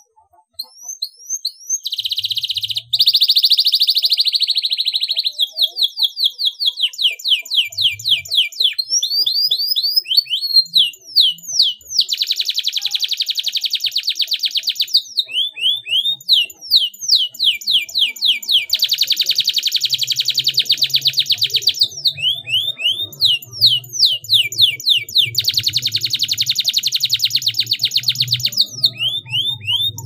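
Domestic canary singing: runs of quick, down-slurred whistled notes broken by several long rapid trills, each lasting two to three seconds.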